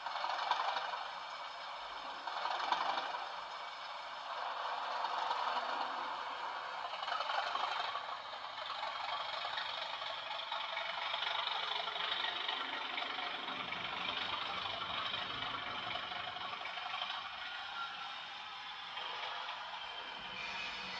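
Recorded Class 37 diesel locomotive engine sound from a Bachmann factory sound decoder, played through an aftermarket twin iPhone speaker in an OO model locomotive: a steady, rattly engine running, thin with little bass.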